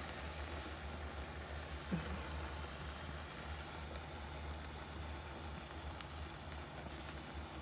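Barbecue-sauced porterhouse steaks sizzling on a charcoal grill: a faint steady hiss with a few small crackles, over a low rumble.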